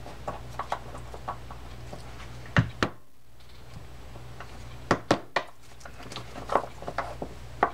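Small hammer tapping a pin punch to drive out the retaining pin that holds the gear sleeve on a Penn Peer 209 reel's bridge. Sharp metallic taps come in small groups of two or three every couple of seconds, the loudest about two and a half seconds in and again about five seconds in.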